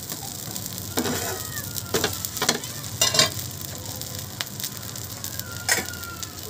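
Egg dosa frying on a hot cast-iron tawa: a steady sizzle, broken by a metal spatula scraping and knocking on the pan several times, the loudest strokes about two and three seconds in.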